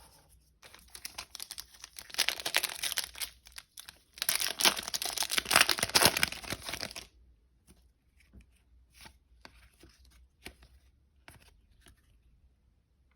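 Foil trading-card pack wrapper being torn open and crinkled, in two rustling stretches in the first half, followed by faint light ticks of handling.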